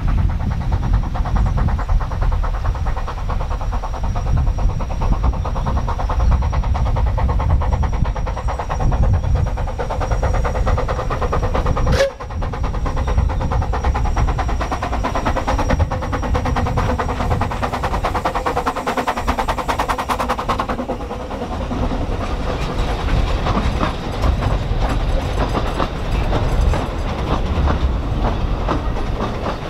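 Narrow-gauge steam train approaching and running close past beneath, the locomotive working with a fast rhythmic beat and its carriages rattling over the rails. There is a single sharp click about twelve seconds in.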